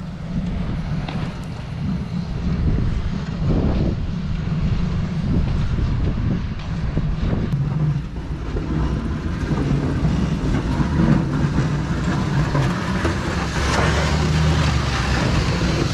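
Snow-plow vehicle's engine running steadily while it pushes snow, with irregular scraping noise over it that grows stronger near the end.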